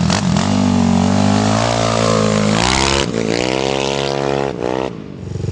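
Stage6-tuned Yamaha Cygnus scooter engine being revved: the revs swell and fall back several times, with a sharp drop about three seconds in, then sink back to idle near the end.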